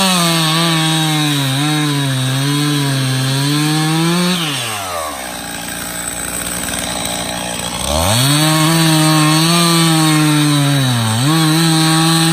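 Stihl MS291 two-stroke chainsaw cutting into a silver maple log at full throttle, its pitch sagging and wavering under load. About four seconds in it drops to idle, then revs back up near eight seconds and cuts again, with a brief dip near eleven seconds.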